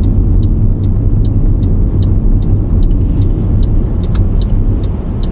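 Steady low road rumble of a moving car, with a light, regular ticking about two and a half times a second.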